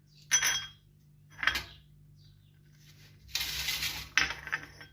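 Small hard pieces of gum resin being added to a dish or pot among the herbs: two sharp clinks about a second apart, then about a second of dense clatter ending in a sharp knock.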